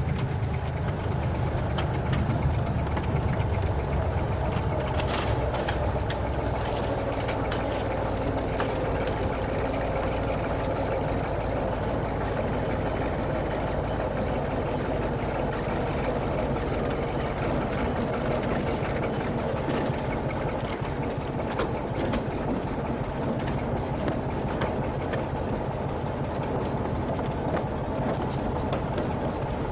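Diesel engine of a 750 mm narrow-gauge train running steadily while under way, with the rumble of the wheels on the rails and a few clicks and rattles about five to eight seconds in.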